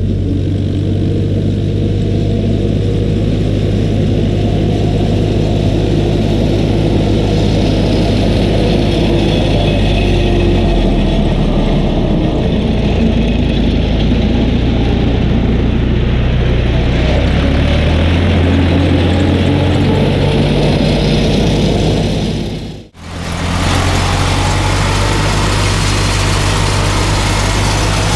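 Tractor diesel engine running steadily, its pitch shifting a little about halfway through. The sound cuts out for a moment about 23 seconds in, then resumes as a tractor engine heard from inside the cab while mowing grass.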